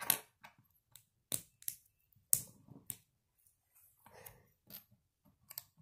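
Lego plastic clicking as black Technic connector pins are pushed into the holes of grey Lego bricks: a handful of sharp clicks at uneven intervals, the loudest about two and a half seconds in.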